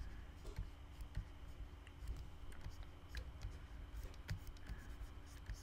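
Faint, irregular taps and clicks of a stylus pen on a drawing tablet as ink strokes are drawn, over a faint steady hum.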